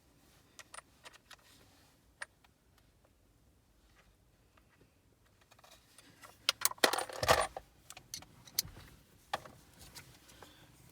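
Small metallic clicks and clinks of a Phillips screwdriver and loose screws as the radio-surround screws are taken out of a car dashboard, with a quick burst of clinking and rattling about six to seven seconds in.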